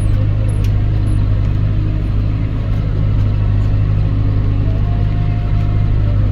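Tractor engine running steadily under load, pulling a plough through a grass ley.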